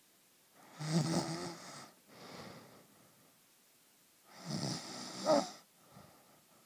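A sleeping person snoring: two loud snores about three and a half seconds apart, each followed by a softer, shorter breath.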